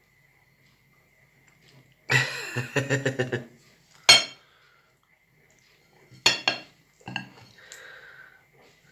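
Dishes and cutlery clattering and clinking: a burst of quick rattling clatters about two seconds in, one sharp clink a couple of seconds later, then a few more clicks and clinks near the end.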